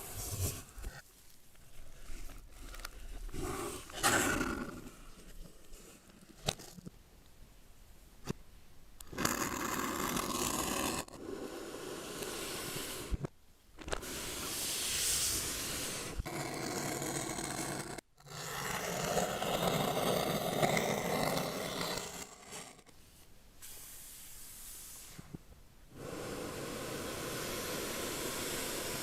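Handling noise: bursts of scraping and rubbing a few seconds long, starting and stopping abruptly, with a few sharp clicks near the start.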